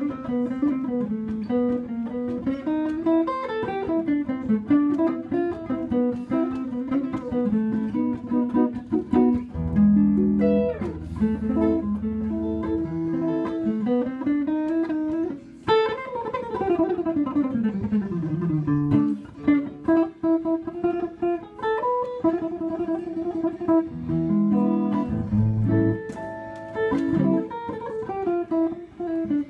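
Epiphone hollow-body electric guitar played solo: a busy instrumental mixing chords, bass notes and fast lead runs, with a long descending run about halfway through.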